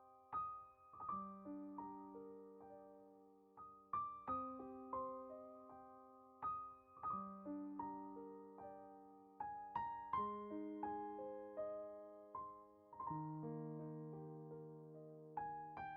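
Soft background piano music: gentle broken chords, notes struck one after another and left to ring.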